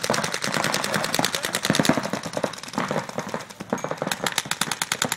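Paintball markers firing in rapid strings of sharp pops, several players shooting at once, many shots a second with the fastest, most even run near the end.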